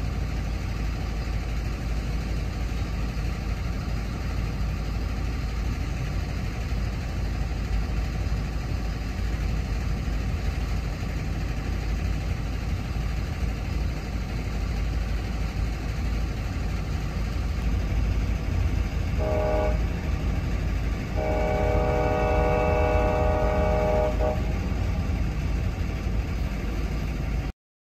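Freight train cars rolling past at a grade crossing, a steady rumble of wheels on rail. About two-thirds through a horn sounds: one short blast, then a longer one of about three seconds.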